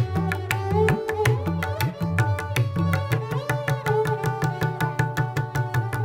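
Hindustani tabla playing fast, closely spaced strokes in Pashto taal, with bayan bass strokes that bend in pitch, over a sustained, sliding sarangi melody.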